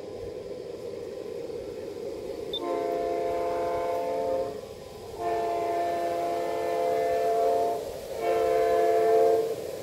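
G-scale model diesel locomotive's onboard sound system running, then sounding its multi-note horn: two long blasts and a short one, the start of the grade-crossing signal pattern.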